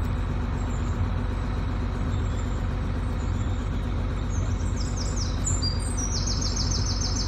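Steady machine hum, plausibly the diesel engine of a truck-mounted borewell drilling rig running while it drills. Birds chirp in quick high runs over it in the second half.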